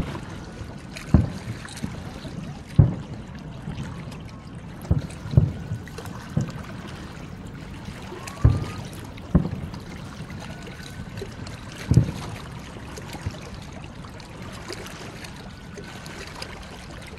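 Aerial firework shells bursting at a distance: about ten dull booms spread unevenly, the strongest about 1, 3, 8.5 and 12 seconds in, with a few faint thin whistles between them over a steady background hiss.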